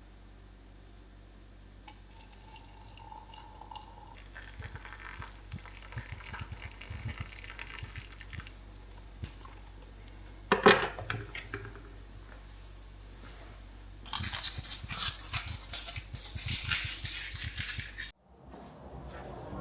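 Liquid being poured and dripping, with one sharp knock about ten seconds in. It is followed by a louder stretch of pouring that cuts off suddenly near the end.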